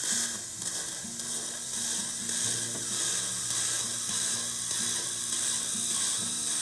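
Surgical suction hissing steadily as it draws off the saline that irrigates the twist drill cutting a dental implant osteotomy.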